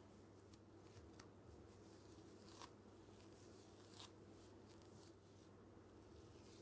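Near silence: faint room hum with a few soft scratches of a comb and hands working through wet hair, the clearest about two and a half and four seconds in.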